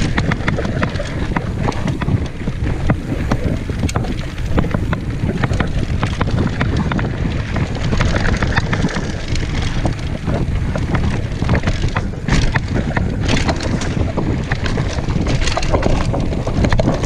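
Mountain bike ridden fast down a dirt forest trail, heard from a camera on the bike or rider: heavy wind rushing over the microphone, with tyre noise and constant small rattles and knocks as the bike goes over bumps.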